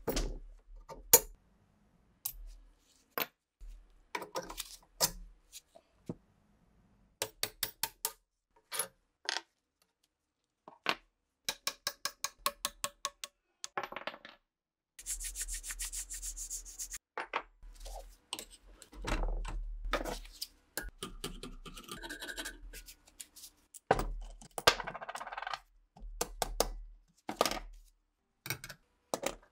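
Small steel gun parts and hand tools handled on a workbench: a string of sharp metallic clicks, taps and clinks, some in quick runs of several a second, with a few short scraping rubs.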